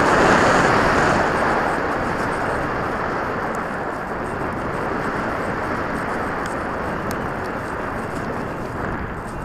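Rushing airflow over an onboard camera on a radio-controlled model plane in flight, a steady roar of wind noise, loudest about a second in and easing slightly toward the end.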